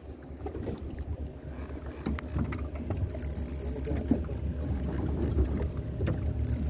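Wind buffeting the microphone in an open boat: a fluttering low rumble that grows louder after about two seconds, with a few light clicks and brief hissy gusts.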